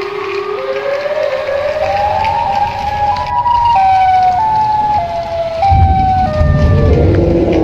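An electronic tune of held notes that climbs step by step and then steps back down, over the low rattle of a battery toy train running on plastic track, which grows louder near the end.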